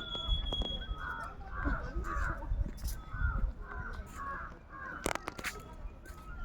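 Crows cawing: a quick run of about eight short, hoarse calls, followed by a couple of sharp clicks about five seconds in.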